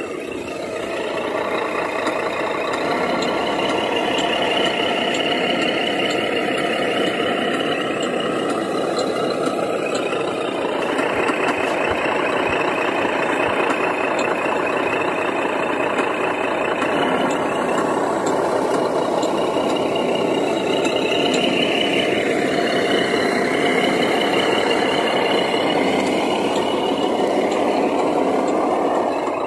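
Radio-controlled 1/14-scale Mercedes 2638 log truck driving, giving a continuous truck-like engine and drivetrain sound. The pitch rises and falls a few times with the throttle.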